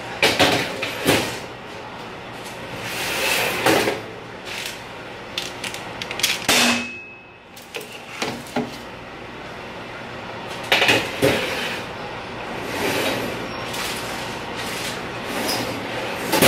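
Metal sheet pans of cookies clattering and knocking against the oven rack and stovetop, a series of sharp metal knocks with one ringing clang about six and a half seconds in. The pans are being banged down so the baking cookies flatten and crinkle.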